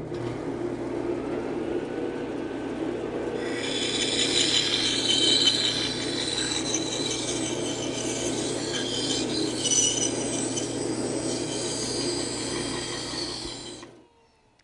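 Band saw with a fine 1/8-inch, 14-teeth-per-inch blade running with a steady motor hum. About three and a half seconds in, the blade starts cutting a red oak board, adding a high rasping whine that varies as the board is steered through tight turns. The sound dies away near the end.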